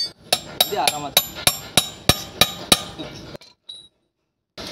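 Metal hand tool striking the impeller and casing of a Grundfos centrifugal pump, about ten sharp ringing taps at roughly three a second, to work the impeller loose. The sound cuts off abruptly for about a second near the end.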